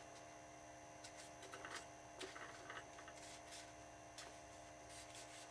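Near silence with faint, scattered small clicks and taps of the hobby parts and wires being handled, over a steady faint electrical hum.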